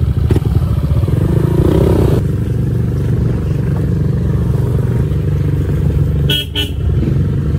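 Honda PCX 150 scooter's single-cylinder engine running steadily at low speed. About six seconds in, a horn beeps twice in quick succession.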